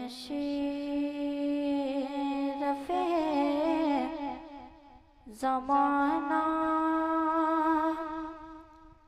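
Solo naat recitation: a boy's voice sings long held, ornamented notes into a microphone, in two phrases with a brief break about five seconds in.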